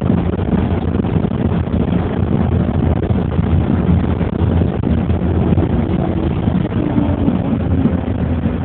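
Steady low rumble of engine and road noise from a moving road vehicle, heard from inside it, with a faint engine note coming up about six seconds in.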